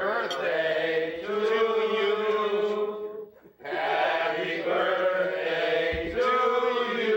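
Voices singing a slow tune in long held notes, in two phrases with a short break about three and a half seconds in.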